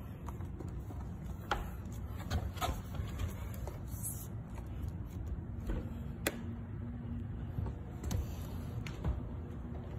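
Scattered light clicks and knocks as a rowing machine's seat-runner rail is handled and fitted against its wooden frame, over a low steady rumble.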